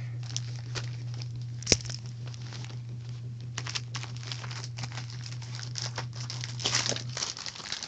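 Rustling, crinkling handling noise of fabric rubbing against the phone, with one sharp click nearly two seconds in. A steady low hum runs under it and stops near the end.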